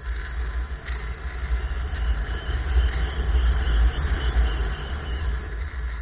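Small aircraft in flight heard from an onboard camera: heavy wind buffeting on the microphone over a steady engine and propeller drone. It grows louder through the middle.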